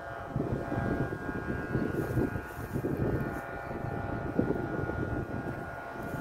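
Strong wind buffeting the microphone in uneven gusts, with a steady hum of several held tones behind it.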